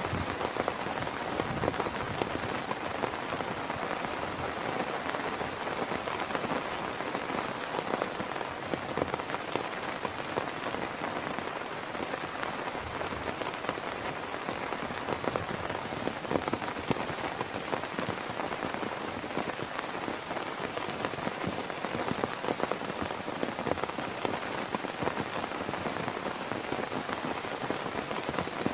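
Heavy rain falling steadily, with many close drops ticking on a surface.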